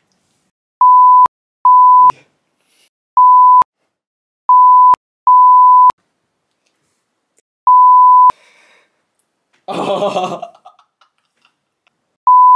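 Censor bleeps edited over speech: seven identical steady beeps of about half a second each, with dead silence between them. A short burst of laughter comes about ten seconds in.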